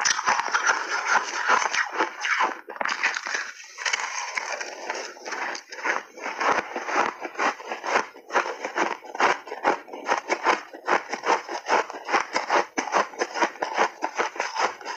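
Crunchy refrozen shaved ice being chewed in big bites: a dense run of sharp, crisp cracks between the teeth that becomes a quicker, more even crunching in the second half.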